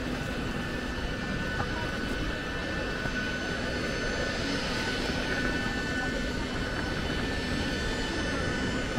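Steady jet aircraft whine over an even rush of noise, holding several fixed tones without change.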